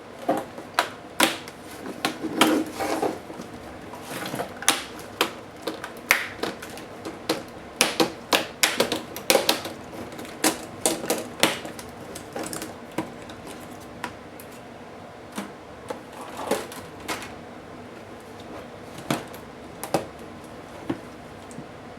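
Irregular sharp clicks and clacks of plastic laptop parts and small tools being handled during a laptop teardown. They come thickest in the first half and thin out later.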